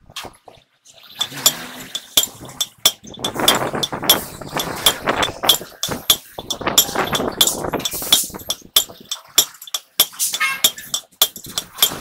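Hammer blows on a steel drift set against the bearing race inside a truck wheel hub: repeated sharp, ringing metal clinks, about two to three a second, starting about a second in.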